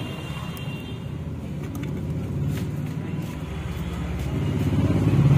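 A motor vehicle's engine running nearby, a low hum that grows steadily louder toward the end.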